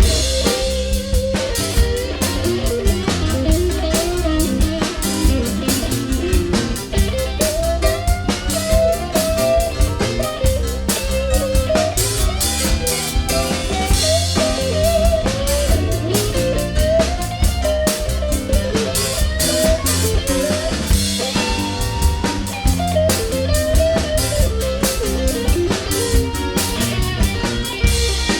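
Live blues band playing an instrumental break: an electric guitar solo with bending notes over drums and bass.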